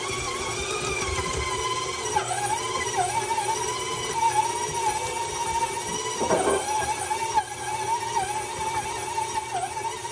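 KitchenAid stand mixer kneading bread dough with its dough hook: a steady motor whine whose pitch wavers and dips now and then. There is a thump about six seconds in.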